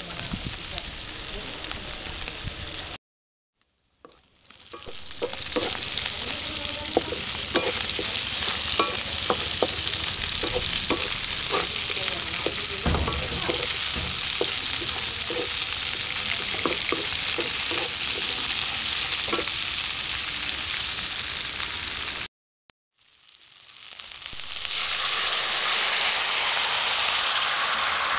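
Beef strips, red pepper and cauliflower sizzling in oil in a wok while being stirred, with many short clicks and scrapes of the spatula against the pan. The sound cuts out abruptly twice. After the second break, a louder, steady sizzle comes in and holds.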